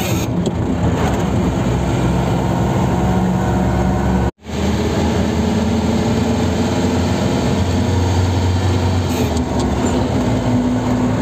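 Engine and road noise of a moving car heard from inside the cabin: a steady hum over tyre noise. The sound cuts out for an instant a little over four seconds in, then resumes.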